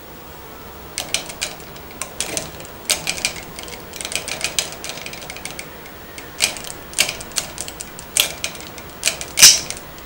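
Budgerigar knocking the plastic ball on its toy bowling set's swing arm with its beak: irregular plastic clicks and rattles, the loudest a little before the end.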